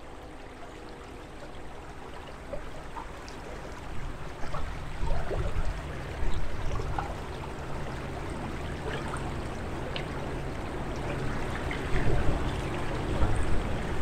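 River water running and lapping against a drift boat's hull, with an uneven low rumble that swells louder for a few seconds at a time and a few faint light ticks.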